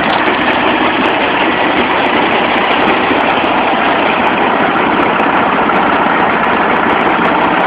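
The 12 hp diesel engine of a Futata HH-5 rice harvester running steadily at an even speed.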